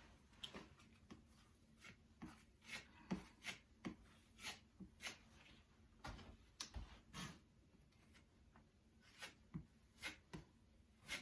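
Faint, irregular scrapes and light taps of a putty knife spreading and packing sheetrock mud (drywall joint compound) into holes in a wall.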